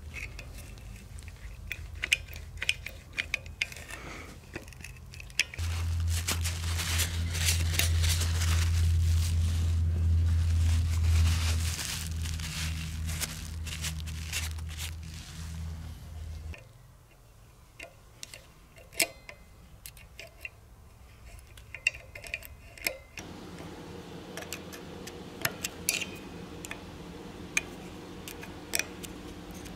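Small metal clicks and scrapes as Velosolex rear drum-brake shoes and their pivot pin are handled, with cloth rubbing as grease is wiped off. A steady low hum comes in about six seconds in, is the loudest sound, and stops about ten seconds later.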